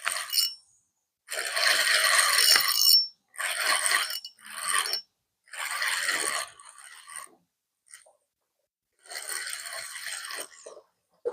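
Fishing reel being cranked in several short bursts, reeling in line, with a scraping, gear-driven whir.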